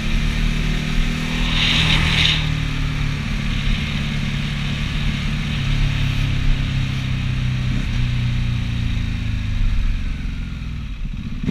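Motorcycle engine running at steady cruising revs with wind rushing over the onboard microphone, with a brief burst of hiss about two seconds in. Near the end the engine note falls away as the throttle is eased.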